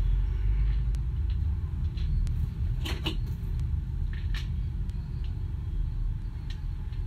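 Scattered light clicks and taps of small screws being handled and set into the plastic base of a Braun citrus juicer, a few sharp ticks about three seconds in, over a steady low rumble.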